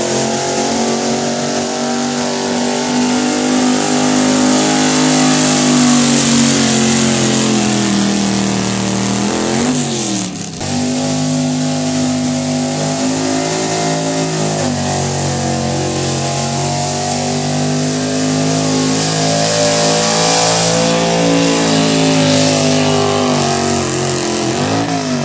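Gasoline engine of a street-class 4x4 pickup running hard at high revs under load, pulling a weight-transfer sled. Its pitch sags and climbs again several times, with a brief sharp drop about ten seconds in, and it falls away near the end.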